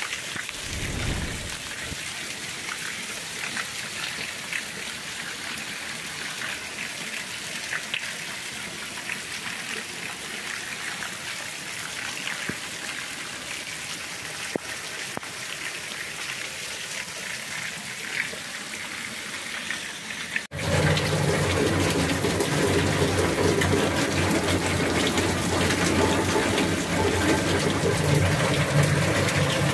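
Steady rain falling on a street, an even hiss. About two-thirds of the way through, an abrupt cut brings a louder, fuller gush of water pouring onto and around a blue plastic water tank.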